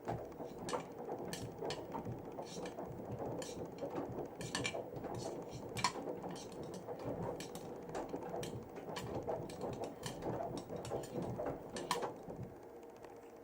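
Panasonic NA-168VX4WGN washing machine turning a load of three wet winter jackets during its soak phase: water sloshing with irregular clicks and knocks. The movement starts abruptly and stops abruptly at the end.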